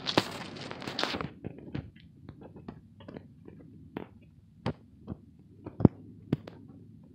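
Rustling for about a second, then a string of separate sharp clicks and knocks: handling noise from a phone camera being carried into a car's front seat.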